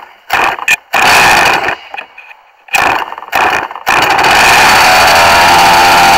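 RC car's motor: four short loud bursts, then from about four seconds in it runs loud and steady.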